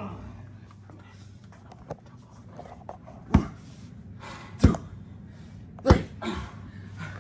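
Three sharp, loud thuds about a second and a quarter apart, impacts of bodies or blows in a wrestling bout, with fainter knocks and scuffling between them.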